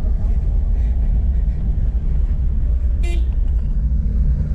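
A steady low vehicle rumble, with one short horn beep about three seconds in.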